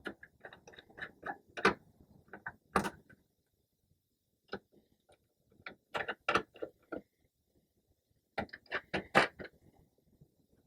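Irregular small clicks and knocks in several short clusters with quiet gaps between them: a power cord and its plug connectors being handled and plugged together.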